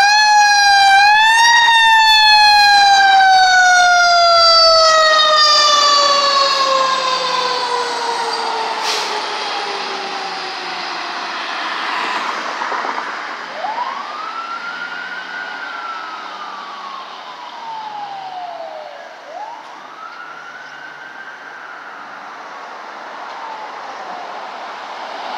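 Fire engine siren sounding as the engine pulls out and drives away. It climbs in pitch at the start, then falls slowly over many seconds, and two more rising-and-falling wails follow, growing fainter as the engine moves off.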